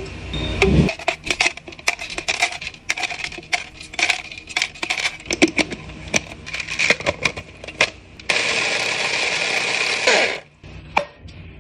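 Ice cubes clattering and clinking into a plastic personal-blender cup over mango pieces. About eight seconds in, the blender motor runs steadily for about two seconds crushing the ice and mango, then winds down with a falling whine, followed by a couple of clicks.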